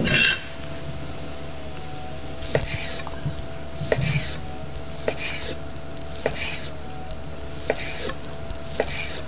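Chef's knife slicing cooked steak thin on a wooden cutting board: the blade knocks on the board roughly once a second, with the soft sound of the cut between, over a faint steady hum.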